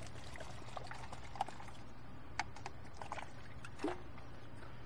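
Seafoam engine treatment being poured from its metal can into a plastic cup, with a few light clicks and taps from the can and cup over a steady low hum.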